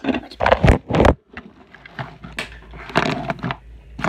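Knocks, scrapes and rubbing from a phone being handled and turned around, loudest in the first second, then scattered, quieter bumps.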